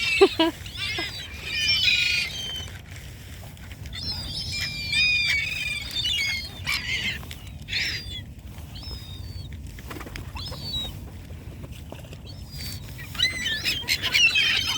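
A flock of hungry water birds calling while they crowd in for scattered seed: clusters of short, high squealing calls, busiest a couple of seconds in and again near the end.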